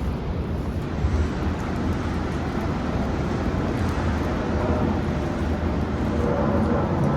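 Steady low rumble of wind and ocean surf, with faint scattered crackles.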